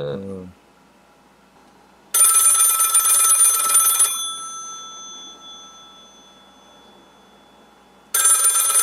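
Telephone bell ringing twice. Each ring lasts about two seconds: the first starts about two seconds in and its bell tones fade away slowly after it, and the second starts near the end.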